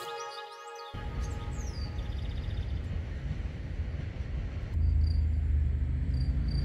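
Background music ends within the first second; then outdoor ambience: a steady low rumble, a single falling bird call, and from about two-thirds through a regular high insect chirp, about two a second, as the rumble grows louder.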